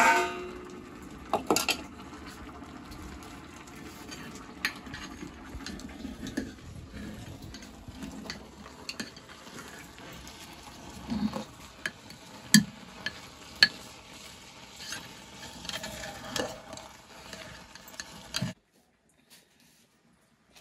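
Metal spoon stirring and scraping in an aluminium cooking pot, with scattered sharp clinks of metal pots and utensils, over a steady hiss. The sound cuts off abruptly near the end.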